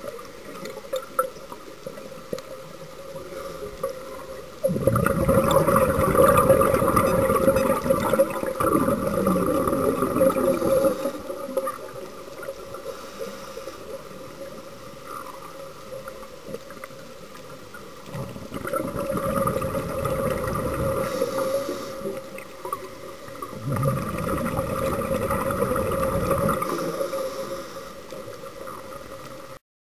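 Underwater audio of a scuba diver breathing through a regulator: three long rumbling, gurgling bursts of exhaled bubbles, about five seconds in, past the middle, and near the end, over a steady underwater hum.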